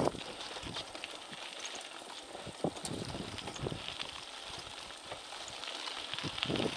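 Mountain bike tyres rolling and crunching over a gravel trail, with irregular knocks and rattles as the bike rides over stones.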